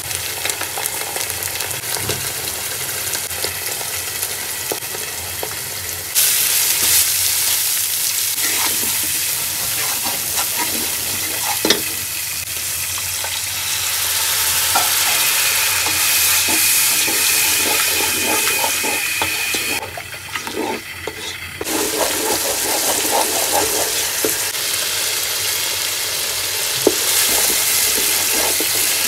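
Sliced onions and ginger-garlic paste frying in hot oil in a pan, sizzling steadily, with a spatula scraping and stirring through them. The sizzle gets louder about six seconds in and drops briefly near twenty seconds.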